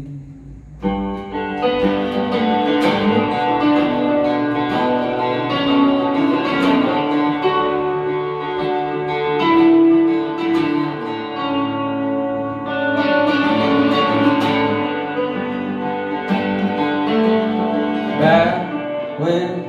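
Electric guitar played through a small combo amp in an instrumental break: ringing, sustained chords and single notes, coming in after a short hush about a second in.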